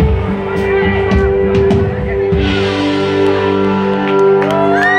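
Live band music led by a strummed acoustic guitar, with sharp strokes in the first half and ringing chords held from about halfway. A voice comes in near the end holding a long note.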